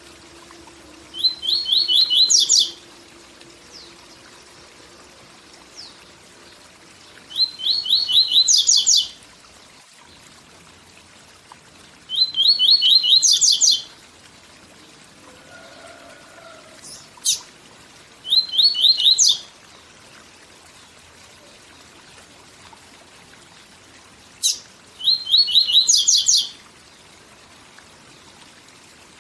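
A papa-capim (Sporophila seedeater) singing its 'tui tui zel zel' song five times, each phrase a quick run of repeated notes about a second and a half long, with pauses of about four seconds between. Under it runs the faint steady rush of a waterfall.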